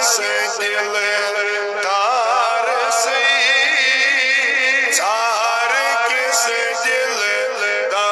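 A man singing a Kashmiri naat solo into a microphone, in long, ornamented phrases with wavering held notes, over a steady low drone.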